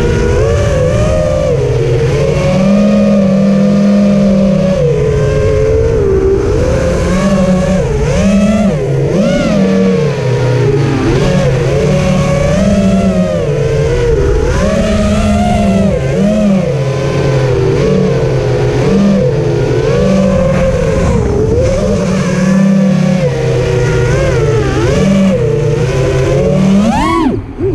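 FPV quadcopter's electric motors and propellers heard from the onboard camera: a buzzing whine that rises and falls in pitch as the throttle changes. Near the end it dips briefly and then sweeps sharply up.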